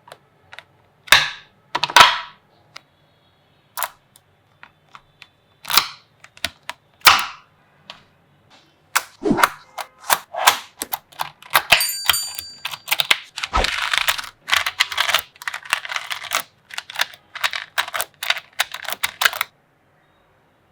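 Small neodymium magnetic balls clicking and snapping together. Single sharp clicks and short rattles come a second or two apart at first, then a long run of rapid clacking follows as the balls are gathered and placed, and it stops abruptly near the end.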